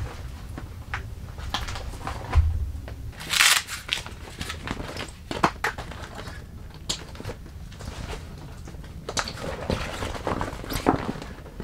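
Stiff waterproof roll-top duffle bag being unclipped and unrolled by hand: a string of clicks and knocks with crinkling, rustling fabric, a dull thump a couple of seconds in and one loud rustling swish soon after.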